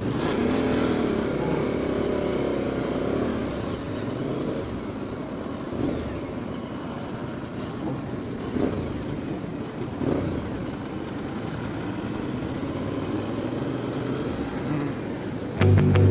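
A pack of motorcycles pulling away together, the engine note rising over the first few seconds and then running steadily as they ride along the track. Music cuts in abruptly just before the end.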